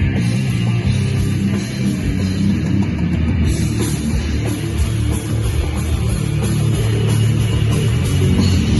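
A heavy rock band playing live and loud, with distorted electric guitar and a drum kit.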